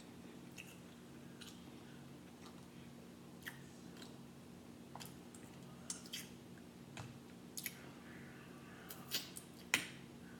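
Seafood eating by hand: shrimp and crab-leg shells crackling and clicking as they are peeled and picked apart, with chewing, in scattered small clicks that get louder and closer together near the end.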